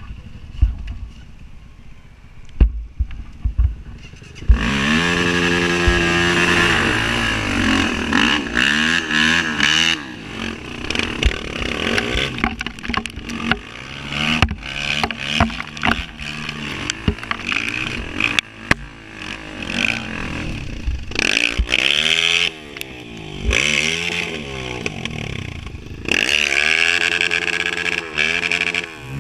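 A few knocks and clatters as a Honda CRF230 dirt bike, a single-cylinder four-stroke, is handled. About four and a half seconds in, its engine comes in loud and revs up and down repeatedly as the bike is ridden.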